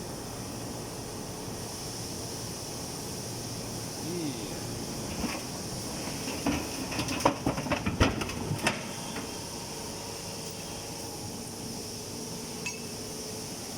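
Horizontal hydraulic metal baler running with a steady hum and hiss, broken about halfway through by a cluster of metal clanks and knocks over some three seconds.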